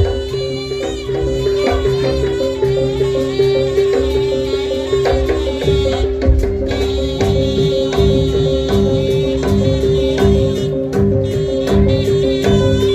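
Jaranan ensemble music: hand drums playing a quick, busy rhythm over tuned percussion, with one steady held tone beneath and a wavering melody line above.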